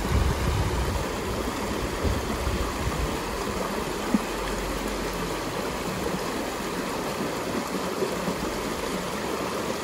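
A river flowing steadily, a constant rushing of water, with some low rumbling in the first few seconds and a single sharp tick about four seconds in.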